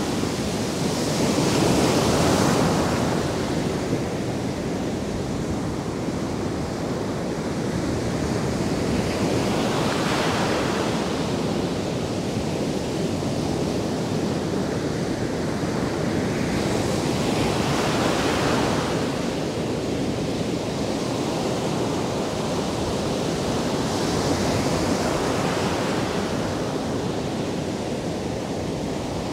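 Atlantic surf breaking and washing up a sandy beach: a continuous rushing wash that swells as each wave breaks, about every seven to eight seconds.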